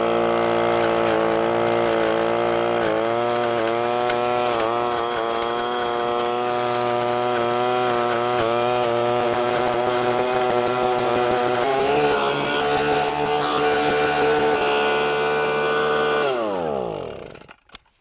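Echo ES-250 Shred 'N' Vac leaf blower-vac's small two-stroke engine running at high throttle in vacuum mode, sucking up leaves. Its speed wavers a few times, then winds down and stops near the end.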